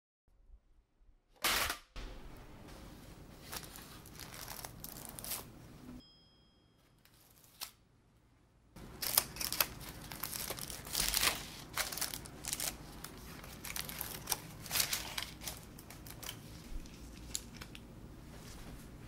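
Pleated paper cake liners crinkling and rustling as plastic-gloved hands turn freshly baked castella cakes upside down and press them onto a greased baking sheet. A sharp knock about a second and a half in.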